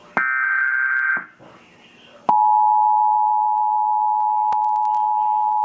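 Emergency Alert System tornado warning: the last one-second burst of the screechy SAME digital header, then, about two seconds in, the EAS two-tone attention signal starts and holds steady. A few faint clicks sound near the end.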